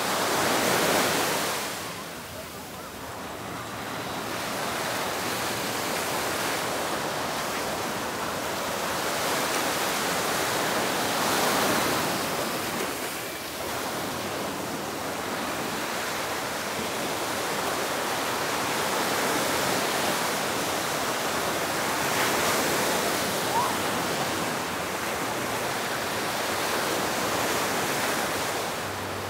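Surf on a sandy beach: a steady wash of waves with a louder swell of breaking water about every ten seconds.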